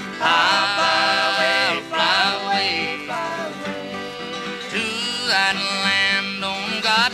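Country-style music: a sung, gliding melody over steady instrumental accompaniment.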